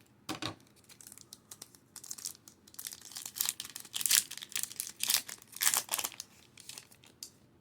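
Foil wrapper of a Pokémon booster pack being torn open and crinkled: a run of short, sharp crinkles and rips, busiest in the middle.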